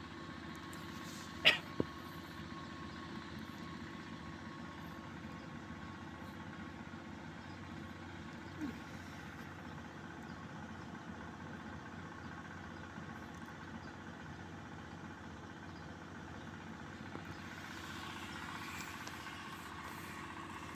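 Steady low rumble of distant traffic, with a sharp click about a second and a half in and a fainter one just after.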